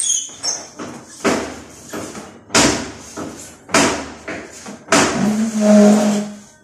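Work noise from fitting mirror panels: a series of knocks and scrapes about once a second, with a short held tone near the end.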